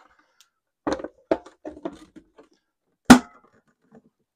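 Hard plastic parts of a Hercules 20V cordless half-gallon wet/dry vacuum knocking and clicking as its filter cap and bottom cover are handled and fitted back on: a few light knocks about a second in, then one loud sharp click about three seconds in.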